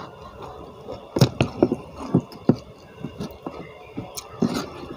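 Close-miked clicks and crackles of food handled with bare hands, an irregular run of sharp ones about a second in and again near the end, as petai (stink bean) pods are set down and fingers pick at food in a plate.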